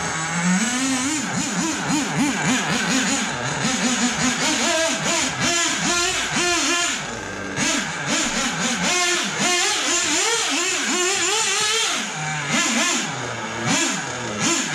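Small nitro engine of a 1/8-scale Losi 8ight RC buggy, revving up and down in quick throttle pulses as it is driven, with a couple of brief spells at lower revs.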